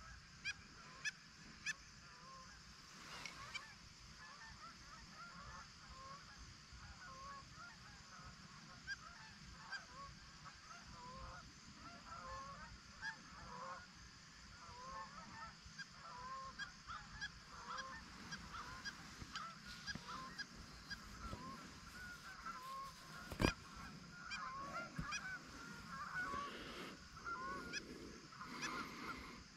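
A flock of geese honking faintly, many short calls overlapping throughout. A single sharp crack stands out a little past two-thirds of the way through.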